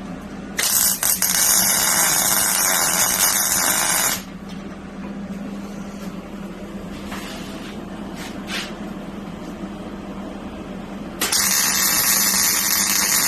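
MIG welder running .030 wire with 75/25 shielding gas, laying two welds of about three and a half seconds each, the second starting near the end; a steady low hum sounds under and between them.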